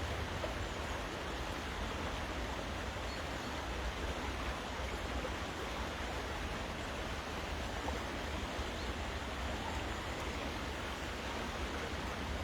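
Rain falling steadily on a river: an even hiss of water with no distinct drops or events.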